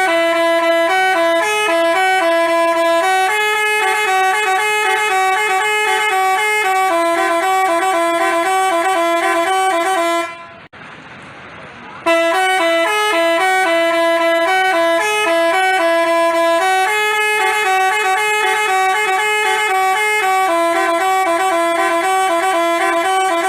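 Telolet basuri multi-tone bus horn playing a tune of held notes stepping from pitch to pitch. The same tune of about ten seconds plays twice, with a short break between.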